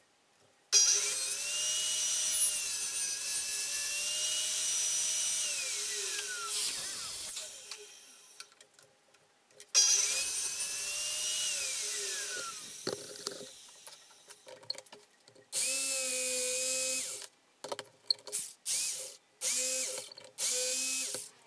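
Ridgid table saw started, ripping a luxury vinyl floor plank and winding down, twice: once about a second in and again about ten seconds in. From about fifteen seconds in, a Ryobi jigsaw cuts a notch in the plank, first in one run of under two seconds, then in a string of short bursts.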